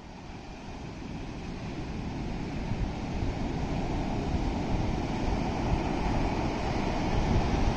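Steady rush of water with wind buffeting the microphone, growing louder over the first few seconds.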